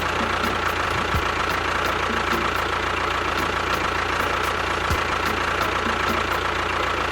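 Small motor of a miniature DIY tractor running steadily: a continuous whir with a steady high whine.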